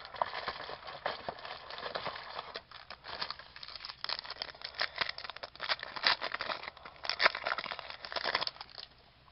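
Wrapper of a trading-card pack crinkling and tearing as it is opened and handled, a dense run of crackles that stops near the end.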